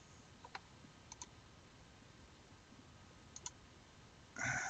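Faint computer mouse clicks: a single click, then two quick double clicks. Near the end comes a louder, brief breathy noise.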